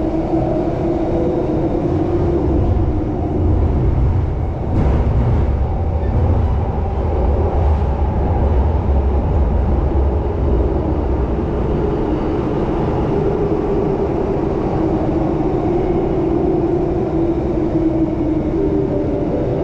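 Singapore MRT Downtown Line train running through a tunnel, heard from inside the car: a steady rumble of wheels and running gear with a faint hum over it. The rumble grows heavier for several seconds in the middle, and there is a single click about five seconds in.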